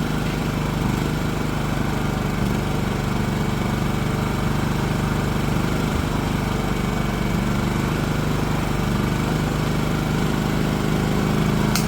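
Champion dual fuel portable generator's small engine running steadily after a tune-up. It has a brief click near the end.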